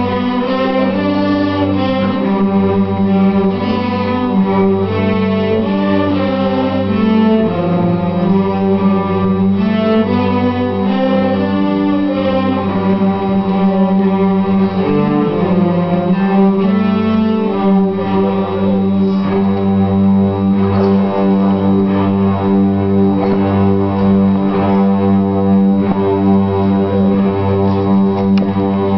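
Student cello ensemble playing a tune over a low held drone note that sounds without a break.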